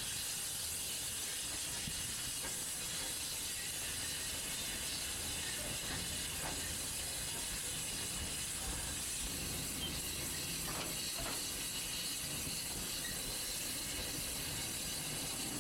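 Steady hiss and low rumble of a small steam locomotive's train on the move, heard from the open wagon behind it, with a few faint clicks.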